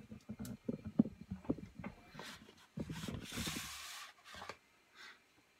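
Kitchen handling sounds: a run of soft knocks and taps, then a rustling hiss lasting about a second near the middle, followed by a few faint taps.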